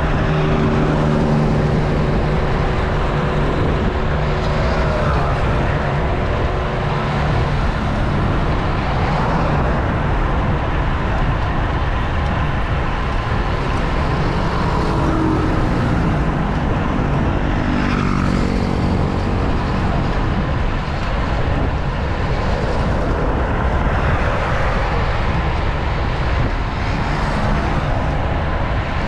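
Motor vehicle engines running close by and passing, heard over steady wind rush on a road bike's handlebar-mounted camera at speed. An engine's pitch slides as a vehicle goes by about halfway through.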